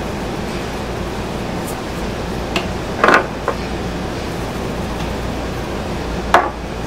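Steady low hum and hiss of room noise, broken by a few brief handling noises as raw chicken breasts are moved about on a plate by hand, the loudest about three seconds in and again near the end.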